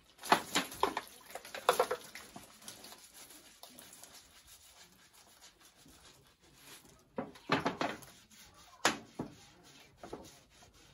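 Short rubbing and squishing noises from a soapy bath sponge being worked in the hands and scrubbed on the skin. The noises come in brief bursts near the start and again in the last few seconds, with a quiet stretch between.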